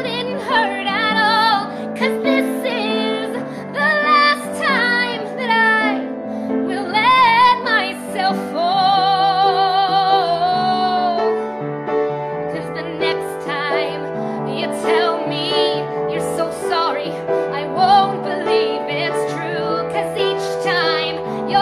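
A woman singing a slow ballad over piano accompaniment, her voice holding a long note with vibrato about nine seconds in.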